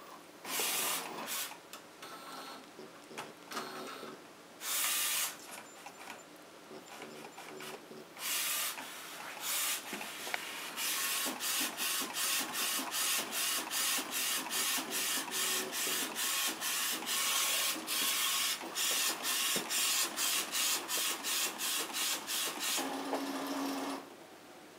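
Home-built direct-to-garment printer built on an inkjet printer mechanism, doing its first print. Three short loud whirs come in the first nine seconds, then the print-head carriage shuttles back and forth in a fast, even rhythm of about two passes a second. It stops about a second before the end, just after a brief low hum.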